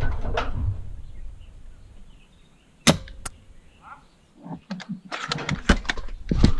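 A single sharp crack of a spring-powered bolt-action airsoft sniper rifle firing about three seconds in, followed a moment later by a second, lighter click. Scattered knocks and noise come before and after.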